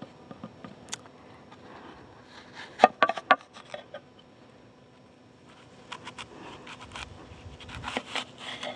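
Kitchen knife cutting an apple into quarters on a wooden cutting board: crisp slicing with the blade knocking and scraping on the board. A cluster of sharp knocks comes about three seconds in, and lighter clicks and scrapes follow near the end.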